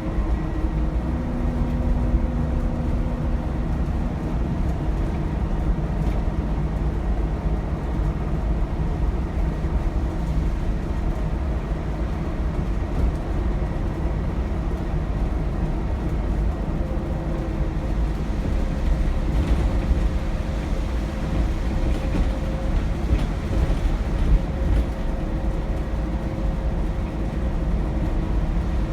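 Cabin sound of an Alexander Dennis Enviro400 double-decker bus under way: a steady heavy rumble from its Cummins ISBe diesel and the road. A faint whistling whine from the turbocharger rides over it near the start and again through the second half.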